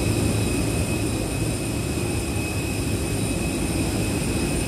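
Steady roar of jet aircraft engines running at the airport, with a steady high-pitched whine over a low hum.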